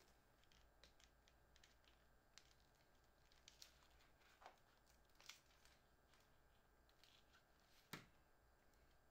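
Faint clicks, scrapes and rustles of fingers prying a smartphone out of its cardboard box tray, with one sharper knock near the end as the phone is lifted free.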